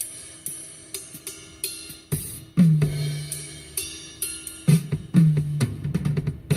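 A recording of an acoustic drum kit played back over a car audio system's speakers. Heavy tom hits ring on with a low tone, mixed with snare, hi-hat and cymbal strokes in a loose, fill-like pattern.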